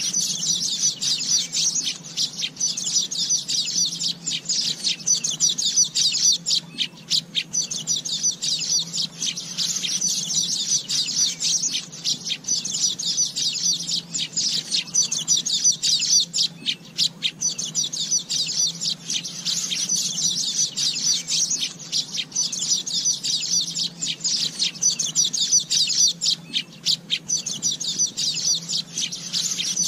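Asian golden weaver song: dense runs of rapid, high chattering and twittering notes, with brief pauses every few seconds.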